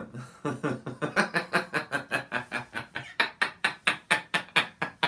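A man laughing hard: a long run of quick, pulsed ha-ha bursts, about six a second.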